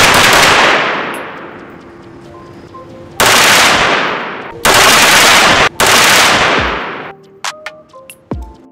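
AR-style rifle fired in four rapid strings of shots, at the start and about 3, 4.5 and 6 seconds in. The shots in each string run together with the echo of the indoor range. Background music with steady tones plays underneath, and electronic beats take over near the end.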